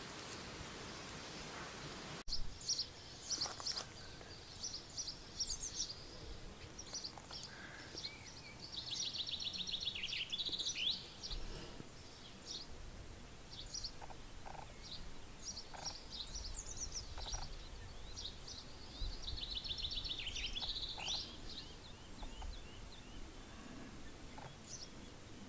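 A steady hiss for about two seconds, then wild birds singing: many short, high chirping notes, with two longer rapid trills that drop in pitch, once about nine seconds in and again about nineteen seconds in.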